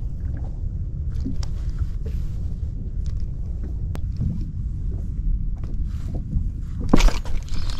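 Steady low rumble of wind and water around a small open fishing boat, with a few faint clicks and one sharp knock about seven seconds in.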